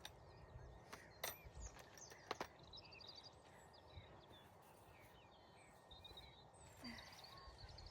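Quiet outdoor ambience with faint birds chirping, and a few sharp clicks about a second in and again about two seconds in.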